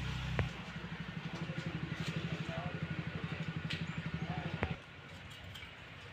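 A machine running with a fast, even low throb that stops suddenly with a click about three-quarters of the way through.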